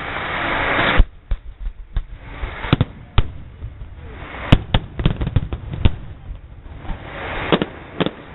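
Fireworks going off: a rushing hiss builds and ends in a sharp bang about a second in, followed by a run of irregular bangs and cracks, then another rising hiss with a few more bangs near the end.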